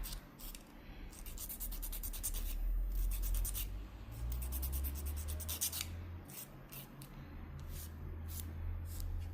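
Nail file scraping back and forth across an artificial nail to shape it, in a fast run of strokes about a second and a half in, then slower, spaced strokes.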